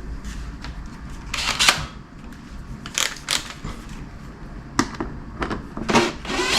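A handful of sharp clicks and knocks, some in pairs, from tools and trunk-lid parts being handled as a Honda Gold Wing trunk lid is taken apart.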